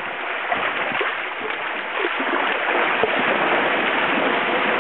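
Water gurgling and lapping against the hull of a small paddle craft as it glides through calm water, a continuous splashy wash dotted with small gurgles.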